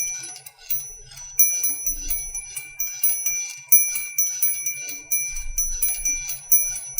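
Angel chimes ringing: high-pitched bell strikes come several times a second and overlap as each one rings on.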